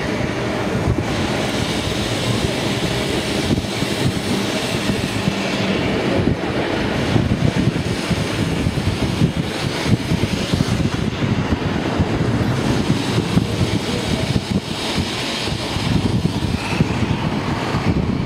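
Blackpool heritage tram running along the promenade track: a steady rumble of wheels on rail and the car's running gear, with wind buffeting the microphone.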